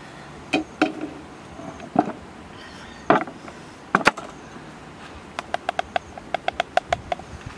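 Separate knocks as a stone mortar and wooden utensils are handled on a wooden table, then a quick run of about a dozen light, ringing taps against the mortar.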